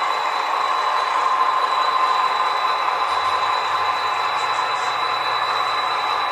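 HO scale model trains running on the layout: a steady rolling rattle of wheels on track, with a thin steady high-pitched whine running through it.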